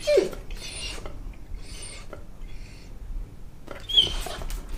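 A golden retriever moving about on a hardwood floor, making short scratchy scuffs and rustles, with a brief falling whine right at the start.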